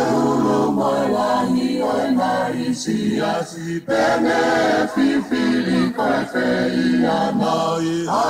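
A group of voices singing a Tongan lakalaka song unaccompanied, with short breaks between phrases.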